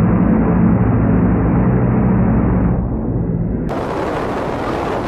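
Train horn blasting, long and loud, with an edit to another blast about three and a half seconds in.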